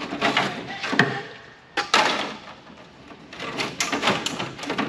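Clatter, knocks and scrapes of telecom circuit cards and their plastic parts being handled, with a sharp knock about a second in and a busier run of clatter near the end.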